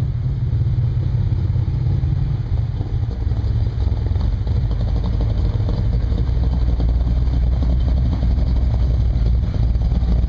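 1972 De Tomaso Pantera's V8 engine running as the car rolls slowly past and pulls up, its deep engine note dropping lower about halfway through.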